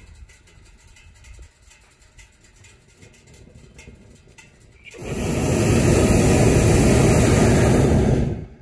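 Hot air balloon's propane burner firing in one blast of about three and a half seconds: a loud, steady roar that starts about five seconds in and cuts off sharply. Before it, only faint background.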